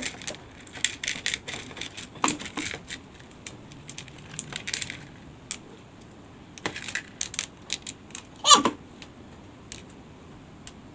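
Small hard coloured pieces from a seashell art kit clicking and rattling irregularly against each other and the plastic plate and bowl as they are picked up and set down. About eight and a half seconds in, a short vocal sound falls in pitch.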